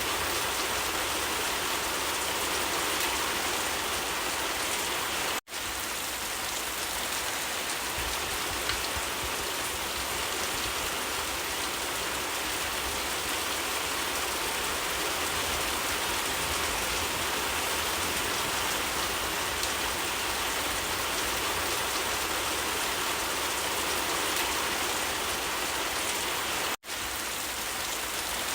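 Steady, heavy rainfall, an even hiss of countless drops hitting surfaces. The sound cuts out for an instant twice, about five seconds in and near the end.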